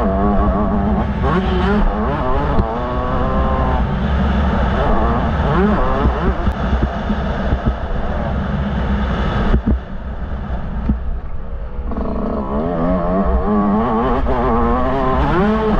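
Yamaha YZ125 two-stroke motocross engine revving up and down repeatedly under riding. About ten seconds in it drops back quieter and lower for a couple of seconds, then climbs again.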